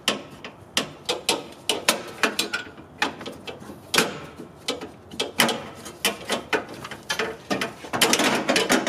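Irregular clicks and metal knocks as a bracket and the AC condenser are worked loose at the radiator support of a 1997–2001 Honda CR-V, with a denser run of quick clicks near the end.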